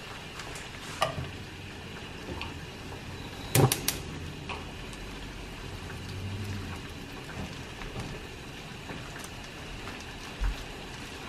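Bread toasting in a frying pan with a low, steady sizzle. A few sharp clicks and knocks, the loudest a quick cluster about three and a half seconds in, come as a second slice is set into the pan and pressed down.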